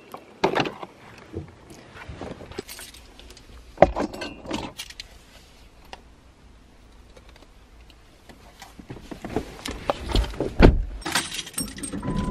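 SUV door handle clicking and the door opening, then rustling, light clinks and knocks as someone climbs into the driver's seat; the door is shut with heavy thumps near the end.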